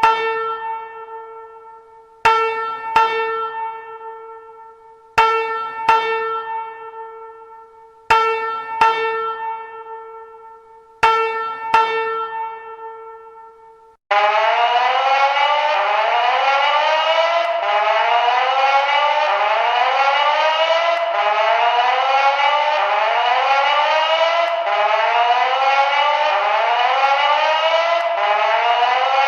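FireCom 8500 fire alarm system sounding through its speakers. First comes a chime tone struck in pairs, each pair about three seconds apart, every strike ringing away. About halfway through it switches abruptly to a fast, continuously repeating rising sweep tone.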